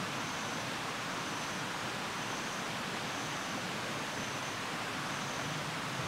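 Steady rainforest ambience: an even hiss with a faint high-pitched pulse repeating about once a second.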